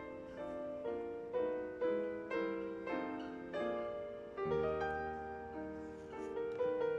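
Soft background instrumental music: a slow melody of single struck notes, about two a second, each ringing and fading away.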